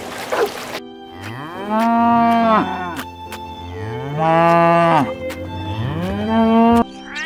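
Cow mooing three times, starting about a second in; each moo is a long call that rises and then falls in pitch.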